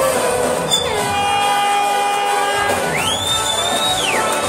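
Live band music played loud to a packed hall. A note is held for a second or so, then a high tone rises, holds briefly and falls away.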